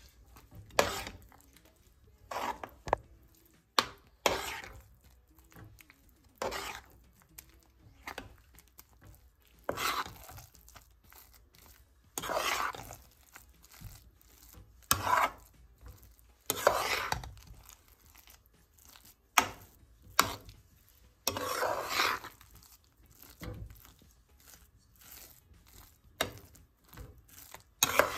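Metal spatula stirring thickening rava kichadi (semolina with vegetables) in a steel pan: repeated scraping strokes every couple of seconds, with a few sharp clinks of the spatula against the pan. The semolina is being stirred constantly so that it does not form lumps as it thickens.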